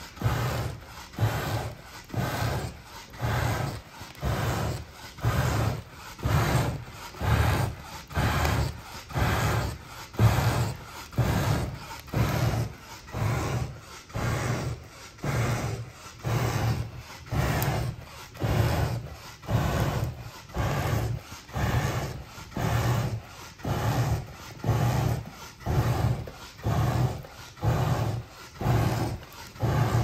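Hand bellows being pumped at a wood stove's firebox, a rhythmic whoosh of air about once a second, blowing on the coals to rekindle the fire.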